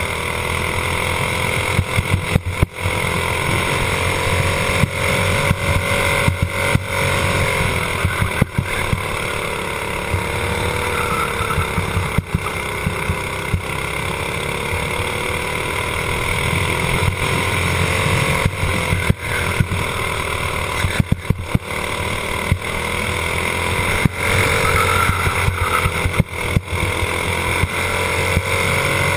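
Racing kart engine running hard, heard from onboard the kart, its pitch falling and climbing again several times through the lap. Scattered brief sharp crackles and dropouts break through it.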